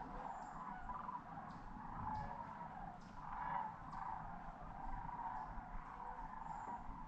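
A flock of sandhill cranes calling together, their calls blending into a continuous chorus that swells about three and a half seconds in.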